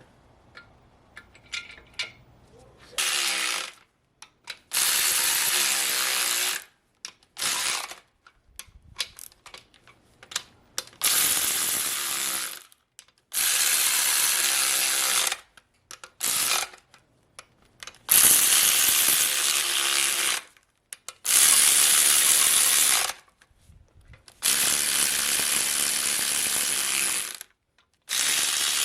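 Ratchet running the main cap bolts down on an LS 5.3 V8 block: repeated bursts of ratcheting a few seconds long with short pauses between, about eight of them.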